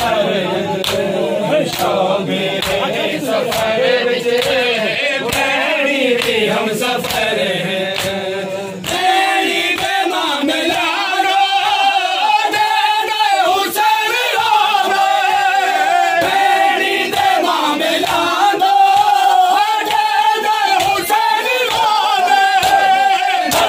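A crowd of men chanting a Muharram noha in unison, with regular sharp slaps of hands on bare chests (matam) keeping the beat. About nine seconds in, the chant shifts higher and brighter.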